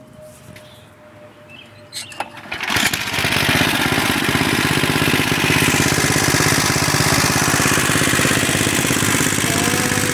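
Snapper riding mower's 8 hp pull-start Tecumseh engine being pull-started: a few clicks and a rope pull about two seconds in, then it catches and runs loud and steady at a fast, even beat.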